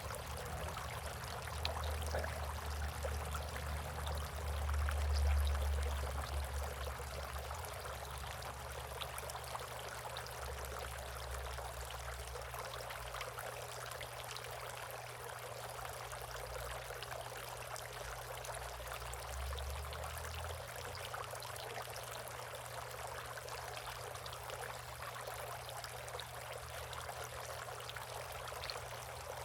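Steady trickle of running water in a bird bath. A low rumble lies under it for roughly the first twenty seconds and swells about five seconds in.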